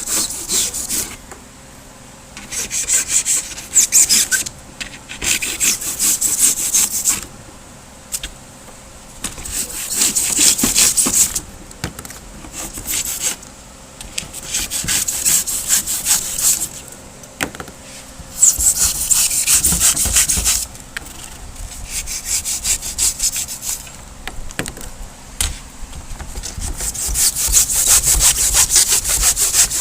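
Hand saw, a hacksaw blade, cutting the cured crack filler off a vinyl dash pad, in about ten short runs of quick strokes with brief pauses between them.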